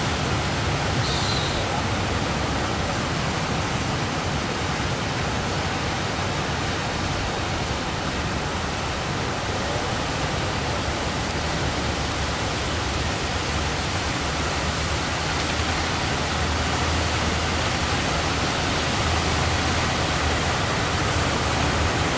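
Big sea waves breaking, a steady rush of surf noise.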